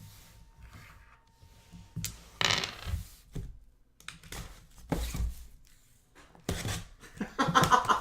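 Cardboard trading-card boxes and packaging being handled: a few separate knocks and rustles, about two and a half, five and seven seconds in.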